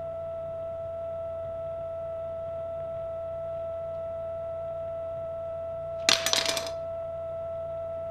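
A steady, sustained drone tone over a low hum. About six seconds in, a metal kitchen knife drops onto a ceramic tile floor and clatters with several quick, sharp hits.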